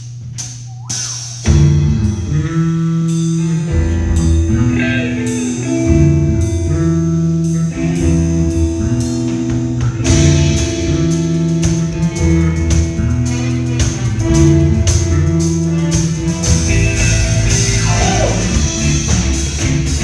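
A rock band of drum kit, bass, electric guitar and keyboard playing an instrumental song intro, coming in together about a second and a half in after a few sharp clicks.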